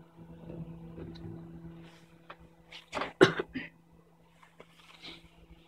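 Faint handling of small tools and phone parts on a repair bench over a steady electrical hum, broken about three seconds in by a loud, short cluster of sounds.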